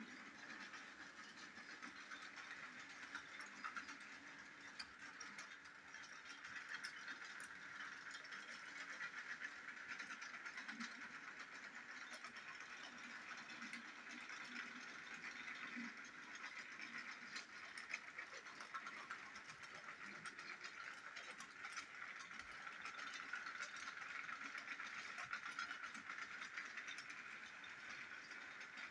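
Battery-powered Plarail toy train running on plastic track: a faint, steady whir from its small motor with fine clicking and rattling from the wheels and wagons.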